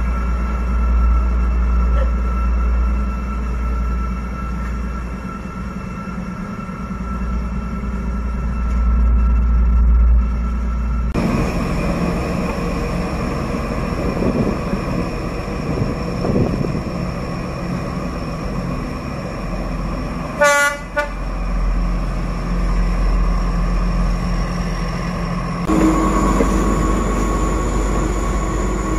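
D11H diesel-hydraulic locomotive running as it comes out of a tunnel and approaches, a steady engine drone with a short horn toot about two-thirds of the way through. The sound changes abruptly twice where separate passes are cut together.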